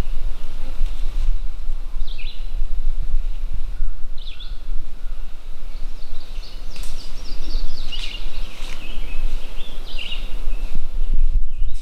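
Small birds chirping in short calls every couple of seconds, which thicken into a busy run of calls around the middle, over a loud steady low rumble.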